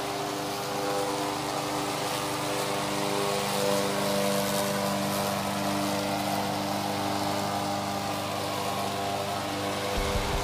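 Briggs & Stratton Vanguard 16 hp V-twin petrol engine of a Marina Raptor 800B remote-controlled tracked slope mower running at a steady speed while the mower cuts grass.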